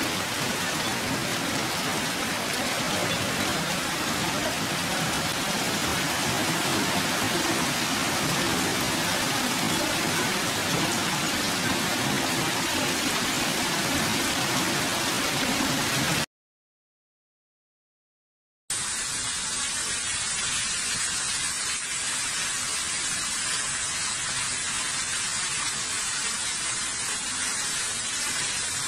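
Heavy hail and rain pelting down in a violent storm, a dense, steady rushing hiss. It cuts out for about two seconds past the middle, then resumes thinner and brighter.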